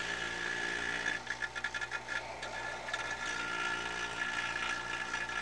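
Vevor 4.5 cfm rotary-vane vacuum pump running steadily, with a stretch of rapid fluttering from about one to three and a half seconds in, as it pulls vacuum on a plain rubber hose that collapses under the suction.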